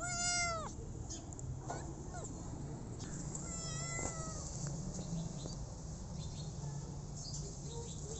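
Small ginger kitten meowing twice. The first meow, right at the start, is short and loud and drops in pitch at its end; the second, a few seconds later, is longer and steadier.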